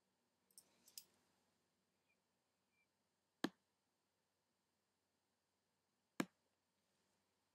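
Near silence broken by a few brief clicks: a small cluster about half a second to a second in, then two single sharp clicks about three seconds apart.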